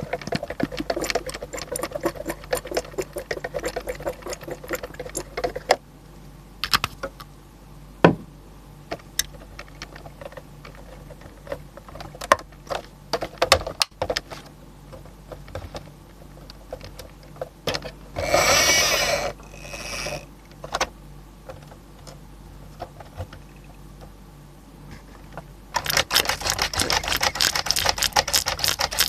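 Miniature diecast toy trucks being handled: rapid runs of small clicks and rattles from plastic and metal parts, with scattered single clicks in between and a brief rustling burst in the middle.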